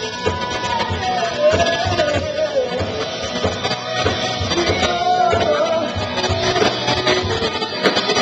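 Live rock band playing full-out: drums, bass and guitar, with a wavering melody line, sung or played, over a steady beat.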